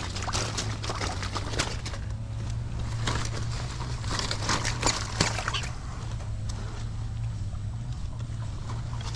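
Water sloshing and splashing with irregular sharp clicks and knocks, over a steady low hum.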